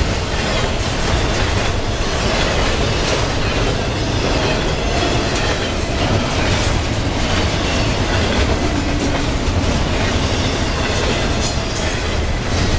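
Double-stack intermodal freight train of loaded well cars rolling past: a steady, loud rumble of steel wheels on rail with repeated clicks as the wheels cross the rail joints.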